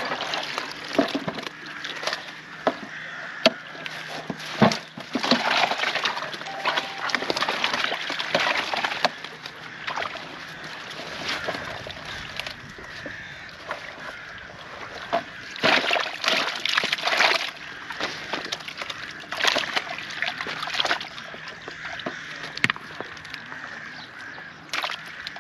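Water sloshing and splashing in irregular bursts as the day's catch of fish is handled in the water, the fish thrashing.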